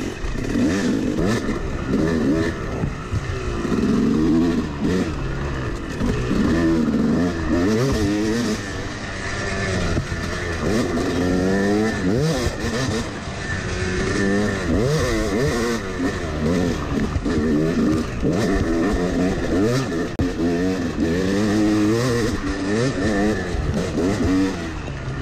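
Yamaha 250 two-stroke dirt bike engine running under way, its pitch rising and falling again and again as the throttle is opened and closed.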